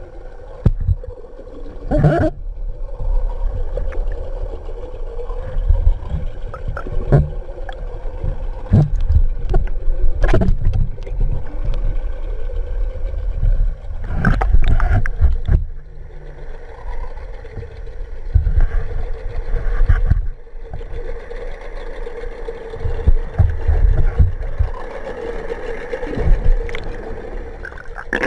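Sound picked up underwater through a camera housing: a low rumbling water noise with a steady boat engine drone, broken by scattered knocks and clicks.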